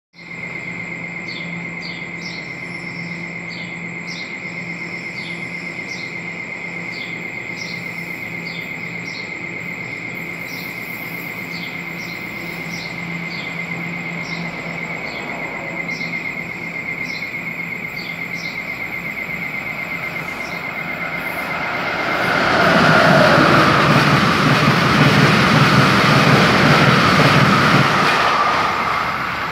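A steady high electric whine and low hum from an NJ Transit multilevel electric train on the far track, with birds chirping. About two-thirds of the way through, an Amtrak Northeast Regional train led by a Siemens ACS-64 electric locomotive passes at speed close by: a loud rush of wheels and air for about six seconds that starts to fade near the end.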